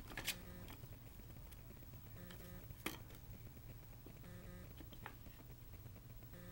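A kitten's paws tapping and batting at a plastic mouse-in-a-track toy: three sharp taps, near the start, about three seconds in and about five seconds in, over a faint low hum.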